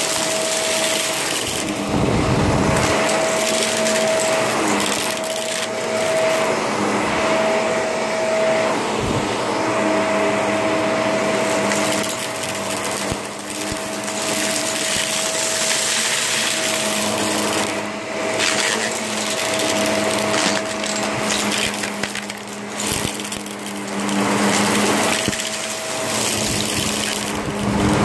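Shark vacuum cleaner running and vacuuming, a steady motor-and-suction noise with a whine that drops out and returns every few seconds.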